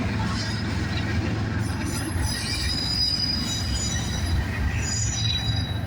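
Union Pacific double-stack freight train rolling past with a steady low rumble, its wheels squealing on the rail in thin high tones from about two seconds in until near the end.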